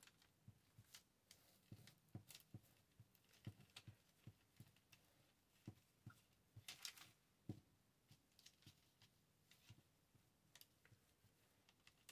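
Near silence with faint, scattered small taps and brief paper rustles from handling craft materials on a desk, the longest rustle about seven seconds in.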